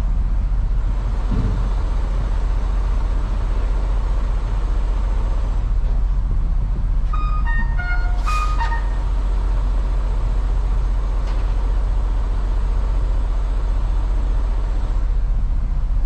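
Diesel semi truck idling steadily, heard from inside the cab, a constant low rumble. About halfway through, a quick run of short electronic tones at different pitches sounds, with a brief sharp hiss at the same moment.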